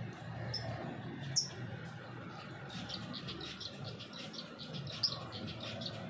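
Steady heavy rain on an aviary with finches chirping: a few short, high chirps, and a quick run of ticking chirps through the middle.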